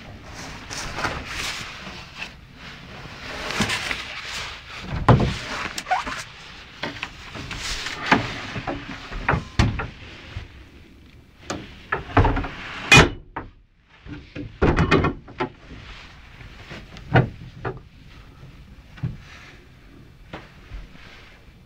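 Wooden cupboard and locker doors in a caravan interior being opened and shut by hand: an irregular run of clicks, knocks and thuds from the doors and their catches. The loudest knocks come about five seconds in, around twelve to thirteen seconds, and again around fifteen and seventeen seconds.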